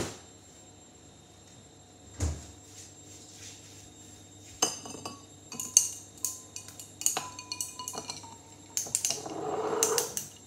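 Small hard objects being handled close to the microphone: a knock, a dull thud, then a quick run of light clinks and taps, some with a brief ring, and a short rustle near the end.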